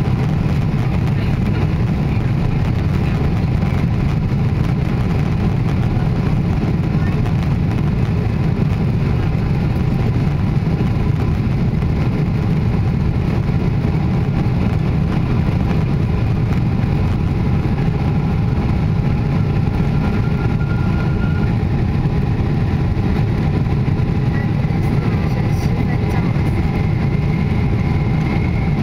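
Steady rumble of a Boeing 777-300ER's GE90 engines and airflow heard from inside the cabin, with a faint whine that rises slightly near the end.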